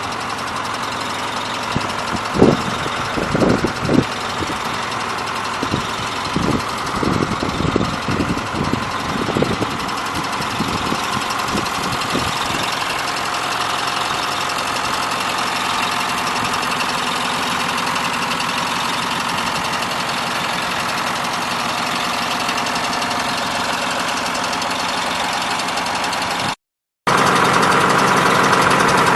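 John Deere 2955's six-cylinder diesel engine running steadily, with a run of irregular sharp knocks and clunks over the first dozen seconds. After a short dropout near the end it runs on louder.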